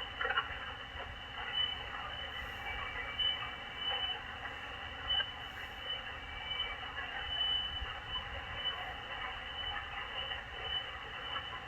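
Shortwave SDR receiver's audio on an open net frequency with nobody transmitting: steady band-noise hiss with crackling static, cut off in a narrow voice band, and a faint high whine coming and going at its top edge.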